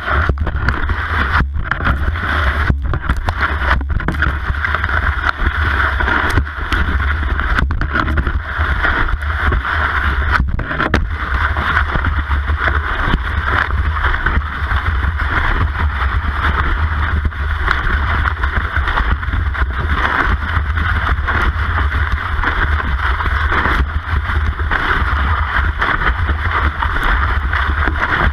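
Cross-country ski gliding in a set classic track: a steady, loud hiss of snow under the ski with a heavy low rumble of wind and vibration on the microphone. A few brief dropouts in the first several seconds.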